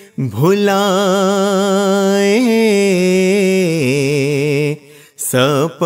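A male voice singing an Ismaili ginan, a devotional hymn, drawing out the word 'bhūlāe' in long held notes with vibrato and melodic ornaments. There are short breaths near the start and about five seconds in.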